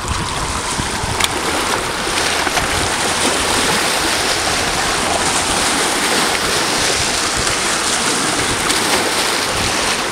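Steady rush of water washing and splashing against granite boulders along the shore, with wind rumbling on the microphone.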